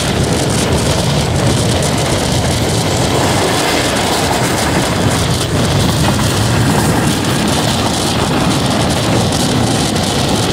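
Tezgam passenger train running along the track, heard from aboard: a steady rumble of wheels on the rails.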